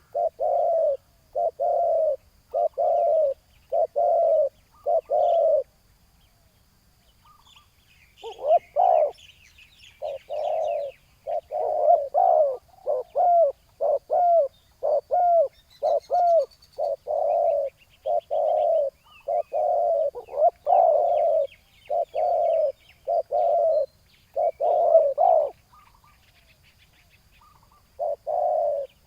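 Spotted doves cooing in long runs of short, low, repeated coos, pausing about six seconds in and again near the end. Faint high chirps of small birds sound in the background.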